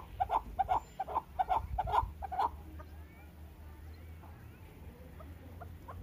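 Chukar partridge calling a rapid series of clucking notes, about three to four a second, which stop about two and a half seconds in.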